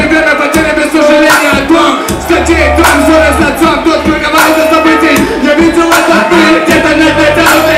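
Hip hop beat playing loud through a concert sound system, with a sustained synth tone over it and deep bass notes that come in about two seconds in and drop out again.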